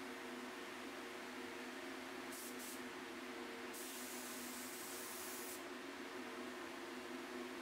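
Fuji spray gun spraying a clear finish: two short hisses of air and finish about two and a half seconds in, then a longer hiss of about two seconds, over a steady machine hum.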